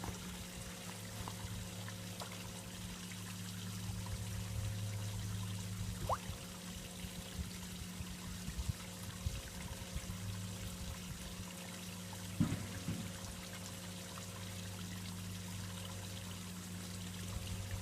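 Water trickling and splashing steadily at a garden pond, over a constant low hum.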